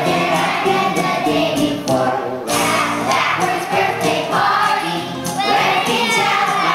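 A choir of young children, second graders, singing a song together.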